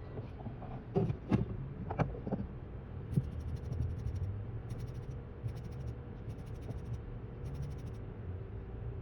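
Small repair tools clicking and scraping on a phone a few times in the first couple of seconds, over a steady low hum, with faint repeating high-pitched hissing bursts after that.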